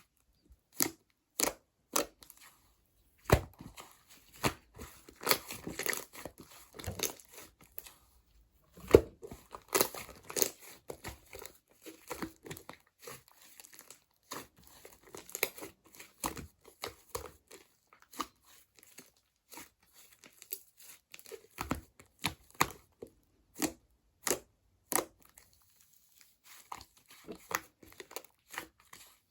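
Slime being squeezed and played with by hand, giving irregular sharp pops and clicks with stretches of denser crackling.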